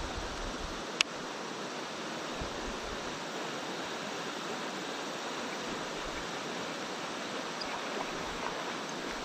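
Shallow river flowing over a stony riffle, a steady rushing of water. One sharp click about a second in.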